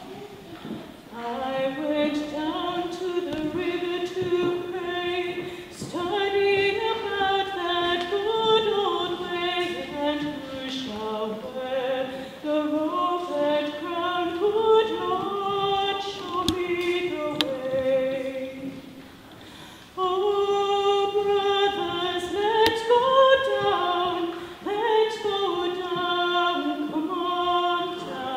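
A choir of mainly female voices singing a slow melody, with a short pause between phrases about two-thirds of the way through.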